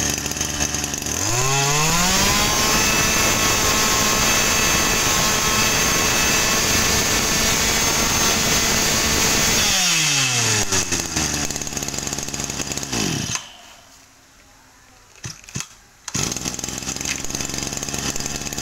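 Small 26cc two-stroke brush cutter engine going from idle to full throttle about a second in, held there for several seconds, then throttled back to idle and switched off. A few clicks follow, then a steady running noise returns near the end.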